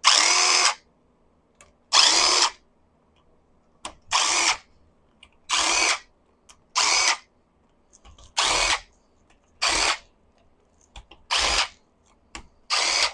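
Small impact tool spinning out the cylinder head bolts on a Kawasaki H2 motor: nine short bursts of hammering, each under a second, with brief pauses as it moves from bolt to bolt.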